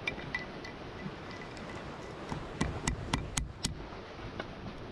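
Shell of a cooked crab being broken open by hand, with small cracking clicks, then a quick run of about six sharp knocks past the middle as a chunk of wood is struck against a claw to crack it.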